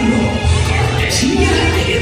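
Show music with a steady beat: repeated bass pulses under cymbal-like strokes.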